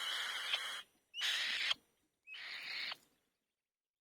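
Young bird's begging calls: three harsh, hissing screeches, the first about a second long and the other two shorter.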